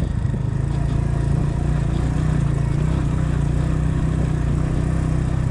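Motorcycle engine running steadily at an even, low speed while the bike is ridden, heard from the rider's seat.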